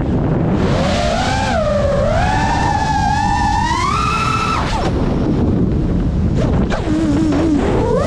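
FPV racing drone's motors and propellers whining, the pitch sliding up and down with the throttle, over a steady rush of wind and prop wash. The whine drops away about halfway through, comes back low, then climbs sharply at the end as the throttle is punched.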